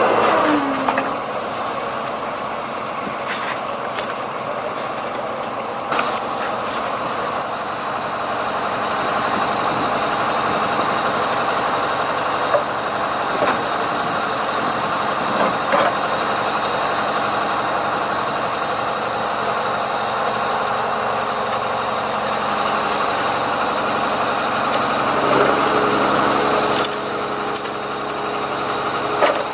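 Heavy diesel machinery engines running steadily, with a few sharp knocks or clanks.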